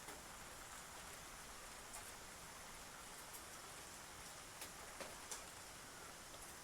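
Eurasian tree sparrow pecking at seed: a few sharp clicks, most of them close together near the end, over a steady soft hiss.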